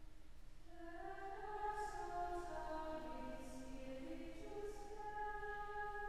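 Offertory hymn at Mass: a voice singing slow, long-held notes over a sustained instrumental accompaniment. The singing comes back in about a second in, after a brief lull.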